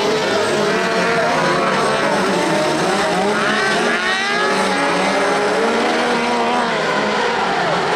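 A pack of motorcycle-engined kart cross buggies racing on a dirt track, several engines revving up and down at once and overlapping, with rising sweeps as they accelerate out of a corner about three seconds in.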